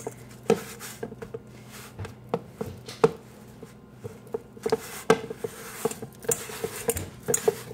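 Hands kneading wet seitan dough in a stainless steel bowl: soft squishing with irregular sharp knocks and taps against the metal bowl, a few every couple of seconds.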